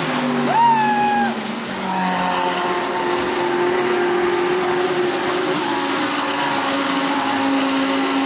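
GT3 race car engines running steadily as a group of cars approaches. About half a second in, a brief high-pitched squeal rises sharply, holds for under a second, then stops.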